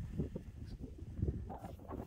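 Soft, irregular thumps and rustling on grass from a dog playing with a rubber ChuckIt Kick Cube, nosing it and then picking it up; the rustle is brightest about a second and a half in.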